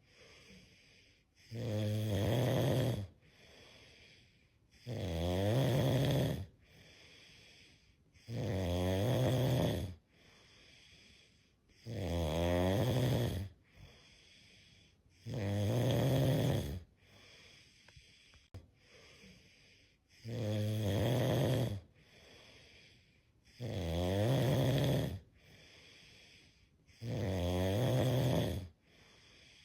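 Cat snoring in its sleep: eight loud snores at a steady pace, about one every three and a half seconds, each lasting about a second and a half, with a quieter breath between them.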